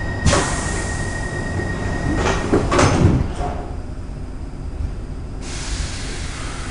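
Stockholm Metro C6 subway car's sliding doors working: a sharp click just after the start, then a clatter of knocks about two to three seconds in, over the car's steady rumble. A hiss starts about five seconds in.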